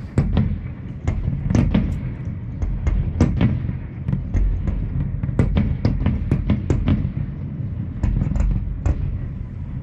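Fireworks display going off: a rapid, irregular run of sharp bangs and crackles, several a second, over a continuous low rumble.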